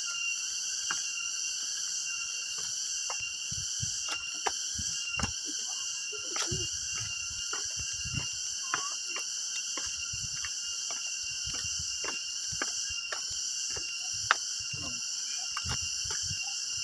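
A steady, high-pitched chorus of insects chirring in the forest, with scattered short clicks and knocks.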